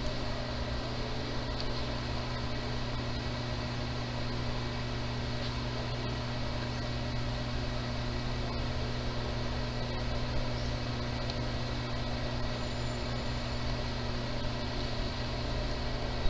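Steady low electrical-sounding hum with an even hiss over it, unchanging and with no distinct events.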